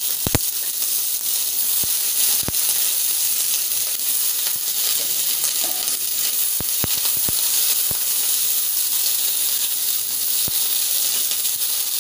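Diced capsicum and onion sizzling in a little hot oil in a kadai, just added for a light fry: a steady hiss broken by a few sharp clicks.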